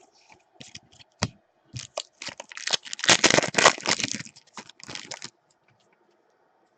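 A trading-card pack wrapper being torn open and crinkled, a dense crackling run of a few seconds, loudest about halfway through, after a few lighter handling clicks.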